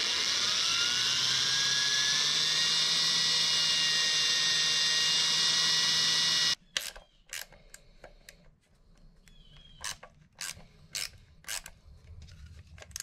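Power drill with a step drill bit spinning up and boring a hole, a steady whine that rises in pitch over the first couple of seconds, holds, and stops suddenly about six and a half seconds in. Then a run of short sharp clicks, about two a second.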